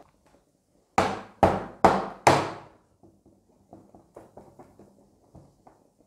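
A jug of freshly steamed milk knocked down on the counter four times in quick succession, then a run of lighter taps and clinks.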